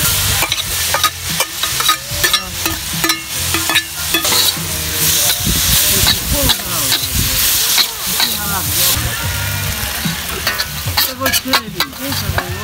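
Metal spatula scraping and clacking against a steel wok while vegetables are stir-fried, over a steady sizzle of hot oil.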